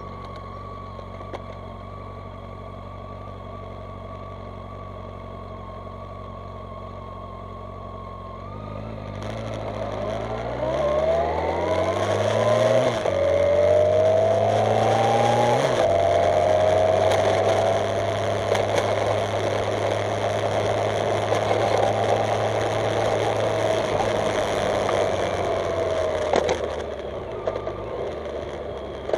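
Motorcycle engine idling steadily, then pulling away about a third of the way in. Its pitch climbs and drops back sharply twice, then it runs at a steady speed with rushing air noise before easing off near the end.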